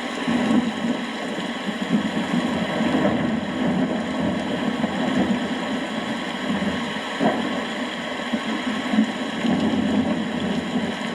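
Steady rainstorm: rain falling with a continuous low rumble, and one sharp tap about seven seconds in.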